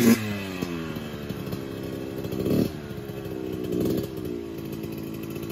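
A child's small dirt bike engine being ridden off. It is loud at first, then its pitch falls as the revs drop. There are two short blips of throttle, about two and a half and four seconds in.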